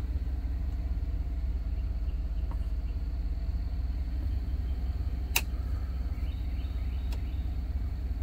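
Chevrolet Avalanche engine idling steadily, heard from inside the cab, with one sharp click about five seconds in.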